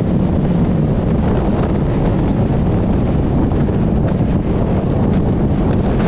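Wind buffeting the microphone of a riding motorcycle at road speed, with the motorcycle's engine rumbling underneath, steady and loud.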